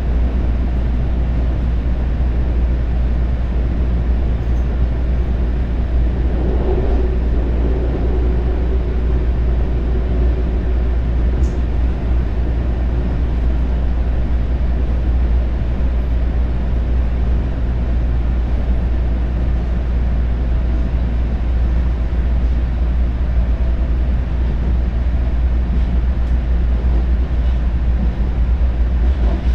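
Electric commuter train running across a steel truss railway bridge, with a steady low rumble from the wheels and running gear. A faint whine comes in about six seconds in and fades away over the next few seconds.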